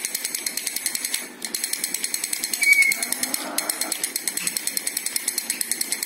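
Toy drumming elephant beating its small drum in a fast, even rattle of about eight taps a second, stopping briefly twice.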